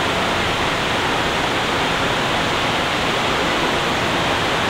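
Air conditioning running: a steady, even rushing hiss with no change.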